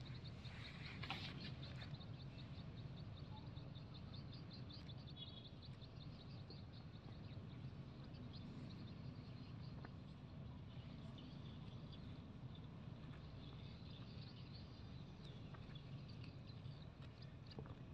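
Faint outdoor farm ambience: a steady low background rumble, with a rapid series of high bird chirps, about four to five a second, for the first several seconds, then only the odd chirp.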